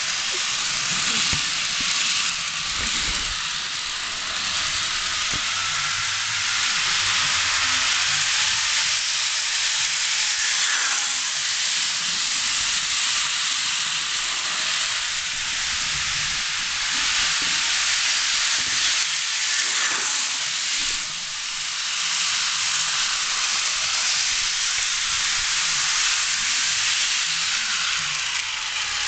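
Model electric train running around its track: a steady hissing whir from the wheels on the rails and the small motor.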